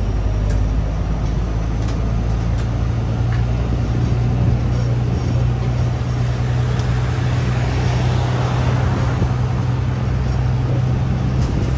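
Double-decker tour bus's engine running with a steady low drone while the bus is under way, with road and wind noise that swells about halfway through.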